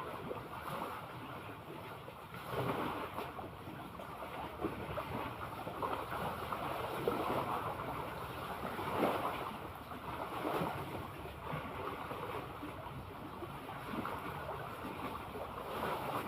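Sea water lapping and splashing, with wind on the microphone; the wash swells up every few seconds.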